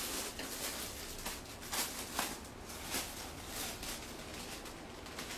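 Irregular short rustles and crinkles from sarees and cellophane-wrapped packets being handled.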